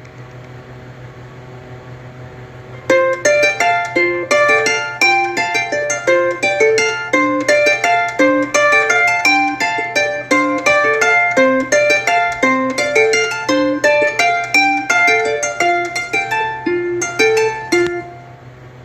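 Ringtone from a TCL A1 (A501DL) phone: a quick melody of short plucked-string notes that starts about three seconds in and stops near the end, over a low steady hum.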